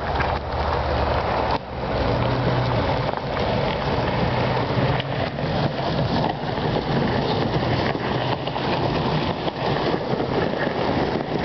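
A vehicle engine running steadily under a continuous rough rushing noise, with no pauses.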